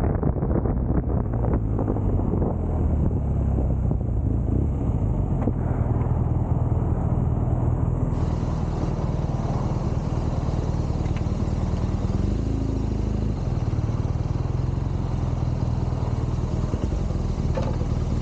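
BMW R nineT Scrambler's boxer twin running steadily. It is first under way with some wind noise, then idling from about eight seconds in.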